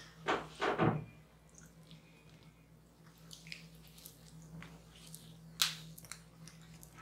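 Hands massaging skin slick with blended fruit pulp: two wet swishes about half a second apart near the start, then soft sticky squelches and small clicks as the skin is kneaded and pinched, with one sharper click a little past halfway. A faint steady low hum sits underneath.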